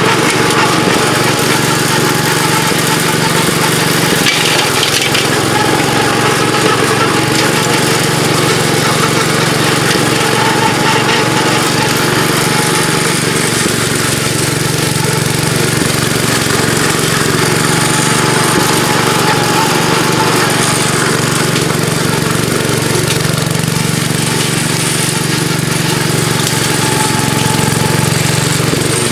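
Gravely Pro 12 walk-behind tractor running steadily under load, its engine driving a rotary brush-mower deck that cuts through brush and vines.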